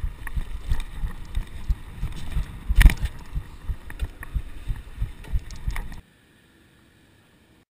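Mountain bike ridden over a gravel trail, heard from a chest-mounted camera: low thumping about three times a second with rattles and clicks, and one louder knock about three seconds in. The sound cuts off suddenly about six seconds in.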